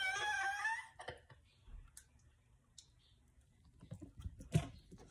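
A woman's short, high-pitched vocal sound, then quiet scattered clicks and mouth noises, with a sharper cluster about four and a half seconds in, as she bites into a hot smoked chicken drumstick.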